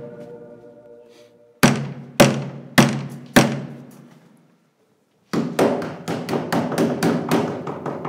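Four heavy, evenly spaced thuds, each ringing out, like a fist pounding on a wooden apartment door, as a chord of music fades. A brisk, rhythmic percussive music track starts about five seconds in.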